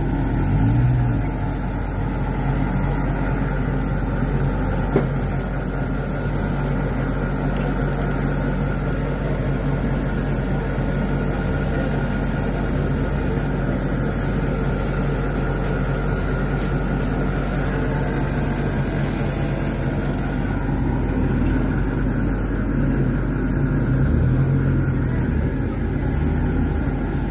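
A steady mechanical hum under a constant hiss, with one sharp click about five seconds in.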